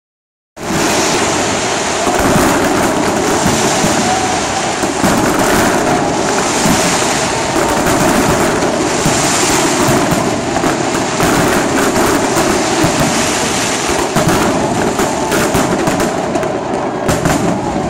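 Fireworks display going off in a dense, unbroken barrage of bangs and crackles, many reports overlapping.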